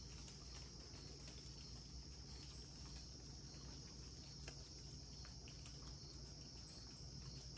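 Faint outdoor insect chorus: a steady, unbroken high trill, with scattered faint ticks over a low background hum.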